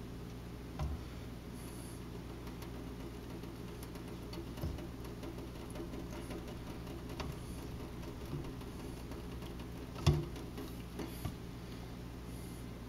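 Light knocks and taps from handling the plastic watertight cylinder of an RC submarine over a sink, with a louder knock about ten seconds in as it is set down. A steady low hum runs underneath.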